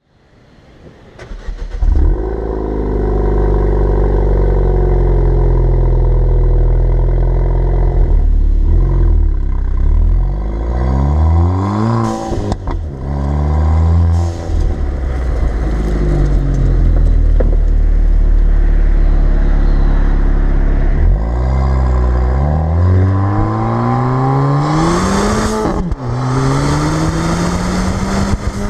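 Ford Fiesta ST's turbocharged engine through a resonator-deleted exhaust: it holds steady revs, then pulls up through the gears in repeated rising climbs, each broken by a gear change. Crackles and pops from the exhaust come at the shifts and lift-offs, the sign of a crackle-and-pop engine tune.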